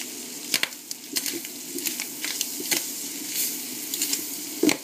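Bacon and mushrooms sizzling as they fry in butter in a pan, with a utensil clicking and scraping against the pan as they are stirred; a louder knock near the end.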